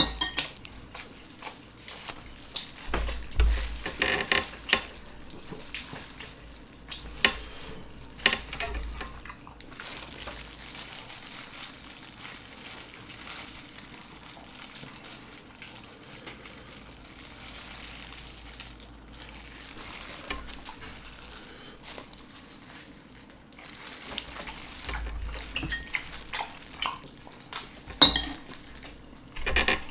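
Close-up eating sounds: wet chewing of rice and raw soy-sauce-marinated shrimp, plastic-gloved hands crackling as they peel a shrimp, and a few sharp clicks of a spoon against the rice bowl, the loudest near the end.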